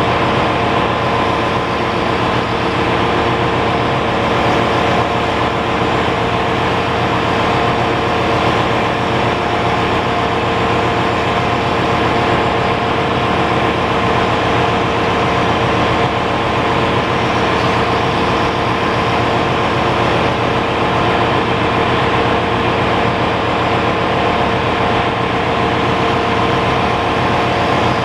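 Ship's engine-room machinery running: a loud, steady mechanical din with a constant hum at a few fixed pitches.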